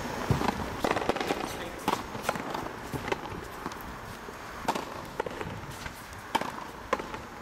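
Frontenis rally: a small rubber ball cracking sharply off strung rackets, the concrete front wall and the floor, about ten irregularly spaced hits, with players' footsteps on the court.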